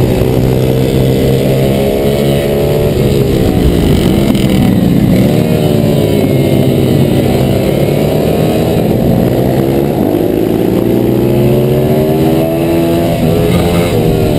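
Pit bike's YX140 single-cylinder four-stroke engine racing on board, its pitch falling as the throttle closes for corners and rising again as it accelerates out, several times.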